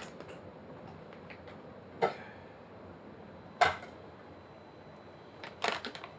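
Kitchen handling noises over a faint steady hiss: a sharp knock about two seconds in, a louder one about a second and a half later, then a quick run of clicks and rustles near the end as a bag of raw rice is handled over a pot.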